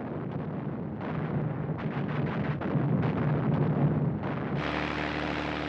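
Dense crackle of gunfire and blasts over a low engine drone. About four and a half seconds in, it cuts abruptly to the steady drone of a WWII piston aircraft engine.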